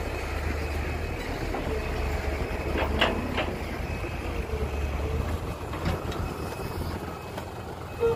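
Heavy diesel construction machinery running with a steady low rumble, with two sharp knocks about three seconds in and another near six seconds.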